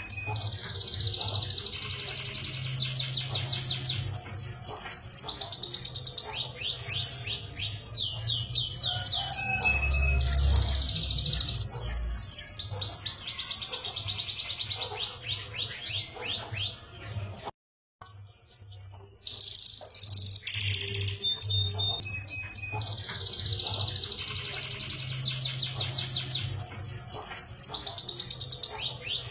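Domestic canary in full song: long, fast rolling trills and runs of quickly repeated rising notes. The song cuts out briefly a little past halfway, then carries on.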